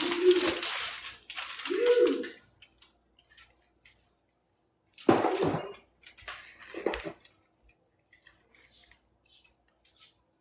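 Handling and breaking chunks of a pressed cornstarch brick: a few sudden crunches and knocks, the loudest about five seconds in and another about two seconds later, with faint small clicks between.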